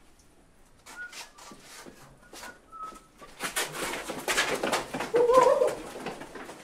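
Quick scuffling and footsteps that thicken into a dense patter about three and a half seconds in, with a short wavering cry about five seconds in.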